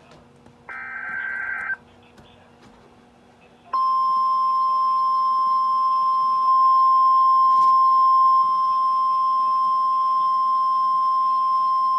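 NOAA Weather Radio alert signal: a roughly one-second burst of SAME digital header data, then, from about four seconds in, the steady 1050 Hz Warning Alarm Tone, which holds on and marks the start of a new warning broadcast.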